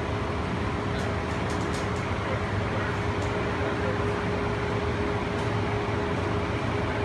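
Cabin of a moving cable-hauled airport people-mover car: steady running noise with a constant hum, and a few faint clicks in the first few seconds.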